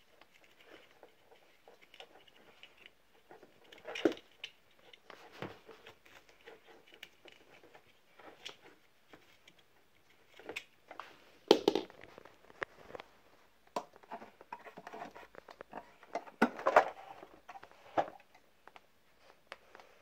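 Vacuum cleaner switched off: irregular fabric rustling and plastic clicks and knocks as a satin thong stuck in the end of the hose is pulled out by hand. The loudest knocks come a little past the middle and again later on.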